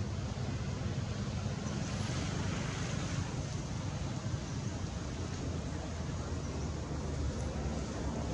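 Steady outdoor background noise: a low rumble with an even hiss above it, unchanging throughout.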